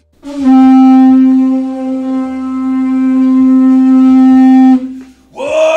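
A conch shell trumpet (Māori pūtātara) blown in one long, loud held note for about four and a half seconds, then cut off. A man's voice starts to shout just before the end.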